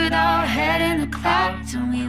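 Background music: a song with a sung vocal melody over steady held low notes.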